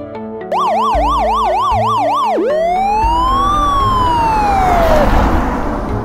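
Cartoon siren sound effect: a fast up-and-down warble for about two seconds, then one slow rise and fall. A rushing noise swells beneath it and then fades.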